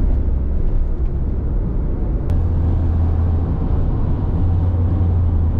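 Vehicle driving at highway speed: a steady, deep engine and road rumble with tyre noise.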